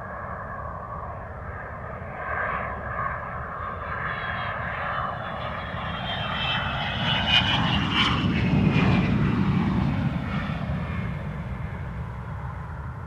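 Airplane passing overhead: a steady engine noise that grows to its loudest a little past halfway, with a whine that falls in pitch as it passes, then fades.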